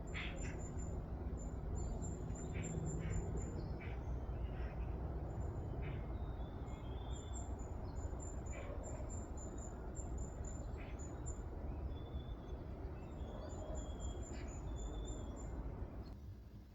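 Birds chirping in short calls and high thin trills over a steady low outdoor rumble.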